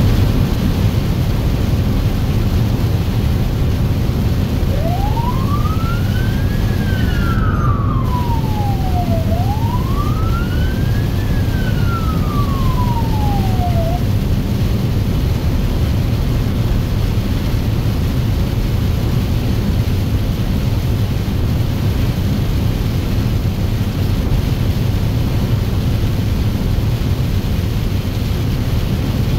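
Steady low rumble of an emergency vehicle's engine and tyres on a wet highway, heard from inside the cab. From about five seconds in, its siren wails through two slow rising-and-falling cycles, then stops about nine seconds later.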